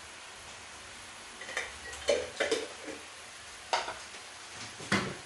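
Kitchen clatter at the stove: about six light clinks and knocks as a small spoon, a glass spice jar and other utensils are handled and set down, starting about a second and a half in.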